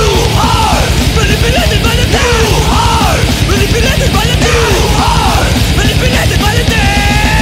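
Thrash metal band playing at full tilt: distorted electric guitars, five-string bass and fast, dense drumming, with a line arching up and down in pitch over it about every half second.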